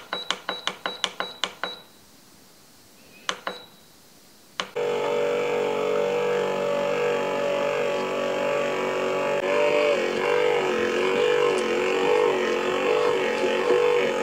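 Bread machine control panel beeping with a quick run of about nine button presses, then one more short beep. About five seconds in, the kneading motor starts and runs steadily, turning the paddle that mixes the flour and oil into dough.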